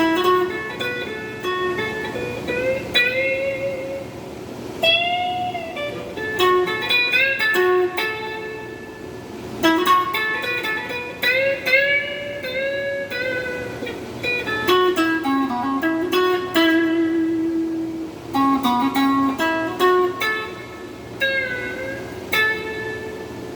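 Electric guitar playing a single-note lead line, with string bends and vibrato held on several notes, in phrases with short gaps between them.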